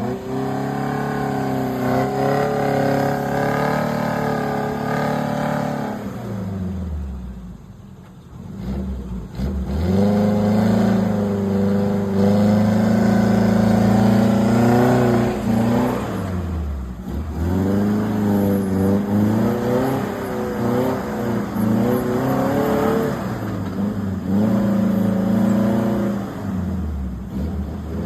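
Off-road vehicle engine revving hard under load, its pitch rising and falling repeatedly. The revs fall away about six seconds in to a brief lull, then climb and hold high, and dip again several times later.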